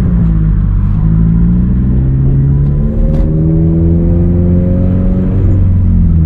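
Turbocharged Scion FR-S flat-four engine through a Tomei 80R cat-back exhaust, pulling hard under acceleration: the note climbs steadily in pitch for about five seconds, then drops near the end as the throttle closes.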